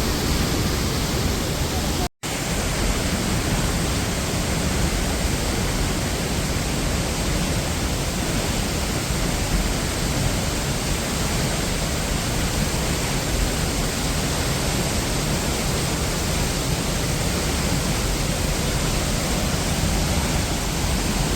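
Devkund plunge waterfall: a steady, even rush of falling water, broken by a momentary dropout about two seconds in.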